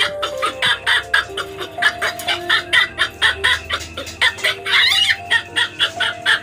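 A rapid run of short animal calls, about five a second, over background music with a simple melody.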